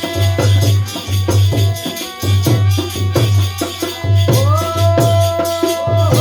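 Holi folk song music with a steady, regular drum beat and shaker percussion; about four seconds in, a held melodic note slides up and sustains, bending down near the end.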